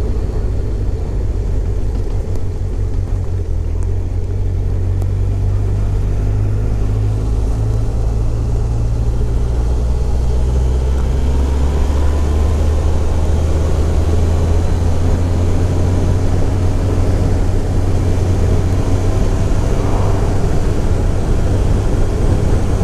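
Motorcycle under way on the open road: its engine runs steadily beneath a heavy rumble of wind on the microphone, and the engine's pitch drifts up and down slowly as the speed changes.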